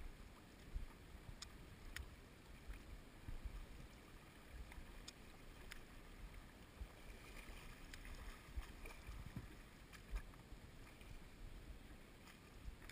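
Faint sloshing of shallow river water around a loaded sea kayak being hauled along by a line, with a few soft ticks scattered through.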